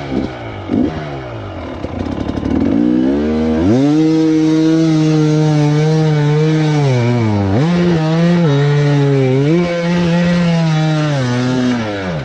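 Enduro dirt bike's single-cylinder engine pulling through a muddy water crossing: uneven low revs at first, then revved up about three seconds in and held high, with a couple of brief dips before the revs drop near the end.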